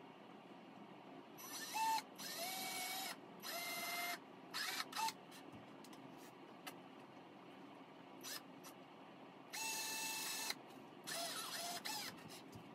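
Power drill running in short bursts into a wooden board: four quick runs of its motor whine, a pause of several seconds, then two more.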